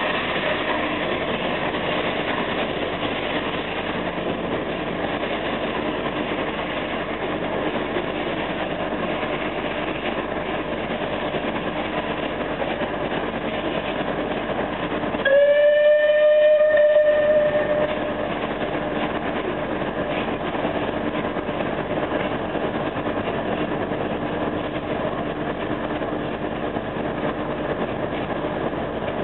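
Southern Railway Battle of Britain class steam locomotive 34067 Tangmere pulling away with its train of coaches, a steady rolling noise throughout. About halfway through it sounds its steam whistle once, a single note held for about two seconds, the loudest sound.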